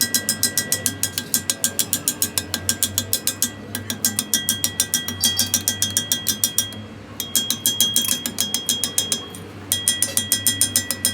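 Rapid, even metallic ticking, about eight ticks a second, with a ringing tone over it. It stops briefly three times.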